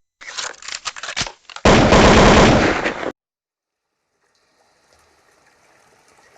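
A quick rattle of sharp gunfire-like bursts, then a loud continuous blast lasting about a second and a half that cuts off suddenly, followed by faint hiss.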